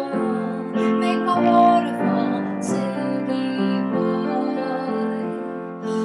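A woman singing while accompanying herself on a grand piano, the piano holding chords that change every second or so under her voice.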